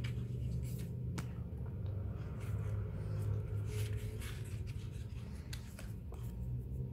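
Photocards and a card cut-out being handled, with light paper rustles and a few small ticks, over a steady low hum.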